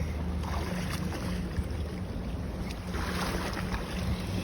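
Boat engine running steadily, a low drone under a haze of wind and water noise.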